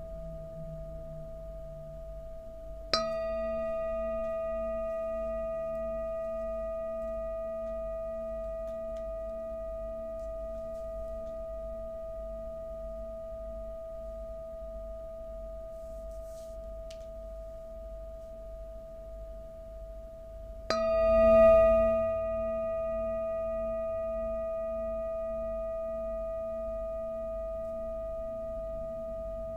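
Large metal singing bowl struck with a wooden mallet twice, about three seconds in and again about twenty-one seconds in, the second strike louder. Each strike leaves a long, steady ringing tone with several higher tones above it that fades slowly.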